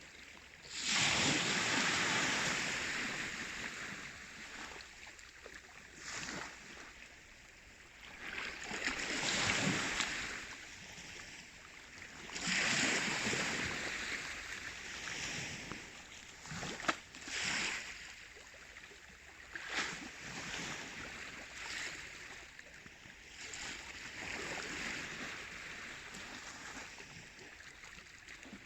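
Baltic Sea waves washing in, a swell of rushing water every few seconds, the loudest about a second in, with a few short sharp splashes later on.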